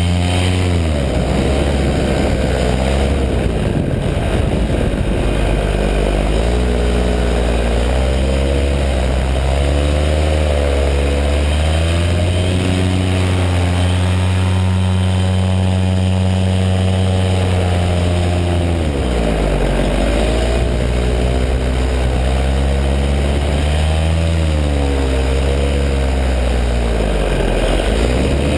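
Paramotor engine and propeller running in flight. The pitch rises and falls with throttle changes, holds steady for several seconds in the middle, then varies again.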